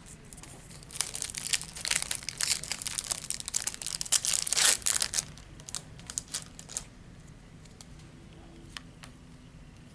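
Foil wrapper of a 2016 Topps Stadium Club baseball card pack being torn open and crinkled, in a dense run of crackling that fades after about seven seconds into a few light ticks.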